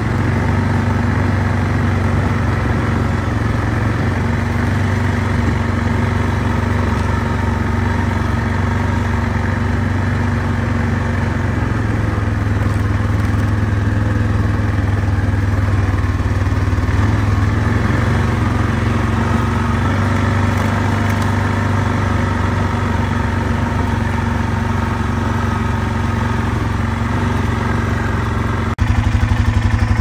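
Off-road vehicle's engine running steadily as it drives along a back road, with rumbling road noise. Near the end the sound changes abruptly to a louder, steadier hum.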